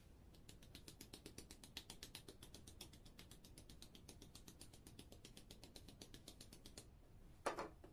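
Faint, steady run of quick clicks, about eight a second, from a handheld sifter working as it dusts white powder over a sheet of baklava dough, followed by one louder knock near the end.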